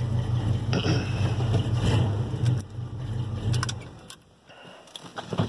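1978 Chevrolet C10 pickup's engine idling steadily, then shut off with the ignition key about four seconds in. A few sharp clicks and a light key jingle follow near the end.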